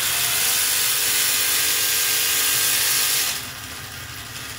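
Small electric motor of a 1/144 scale RC model destroyer driving the propeller shaft through 3D-printed gears at full throttle: a steady whine with a harsh, hissing grind. About three seconds in it turns noticeably quieter and duller.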